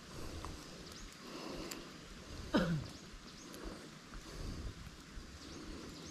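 Quiet outdoor background, with one short sound falling steeply in pitch about two and a half seconds in.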